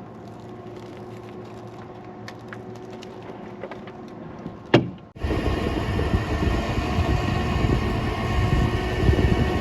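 Recovery truck idling with small clicks, a door slamming shut about five seconds in, then a loud, steady mechanical run starting suddenly: the truck's winch hauling in its wire rope under load to pull a rolled-over Jeep.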